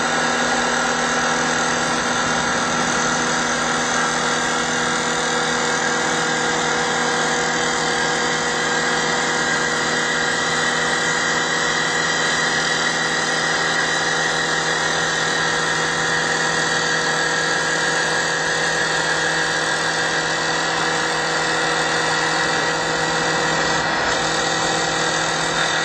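CNC wood lathe running steadily: an even machine hum with a constant high tone over it, unchanging in level.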